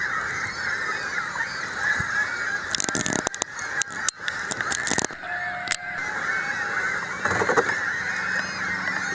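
A large colony of gulls calling all at once: a dense, steady din of overlapping cries, with a few sharp clicks about three and four seconds in.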